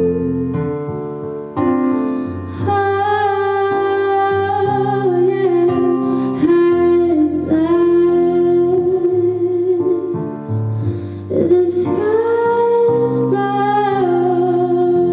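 A woman singing a slow ballad in long held notes over sustained piano or keyboard chords.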